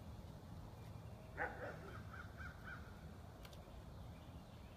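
An animal calling: one sharp call about a second and a half in, then three short calls in quick succession, over a steady low rumble.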